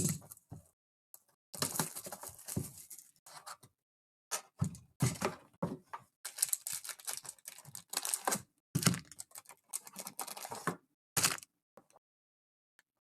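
Plastic shrink-wrap and packaging being torn and crinkled as a sealed Panini Mosaic football hobby box is opened, in irregular bursts with short pauses.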